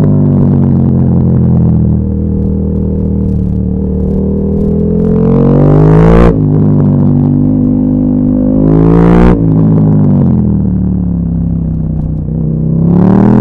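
KTM 1290 Super Duke R's 1301 cc V-twin engine accelerating hard, its revs climbing and dropping sharply at two upshifts, about six and nine seconds in. The revs then fall away and climb again near the end.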